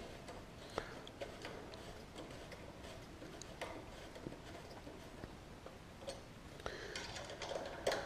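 Faint, irregular light clicks and ticks of a bicycle rear derailleur and its mounting bolt being handled and threaded onto the frame's derailleur hanger.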